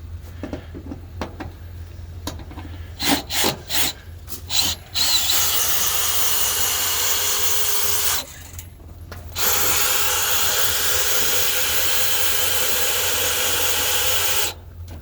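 Power drill with a socket fitted, driving a bolt through the wall. A few short trigger blips come first, then two long steady runs with a short pause between them.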